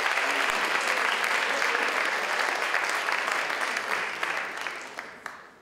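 Audience applauding, a dense steady clapping that thins out and dies away near the end.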